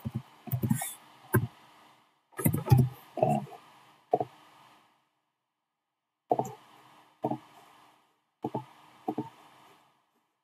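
Scattered computer keyboard taps and mouse clicks, about ten short separate clicks with pauses between them, the longest pause near the middle.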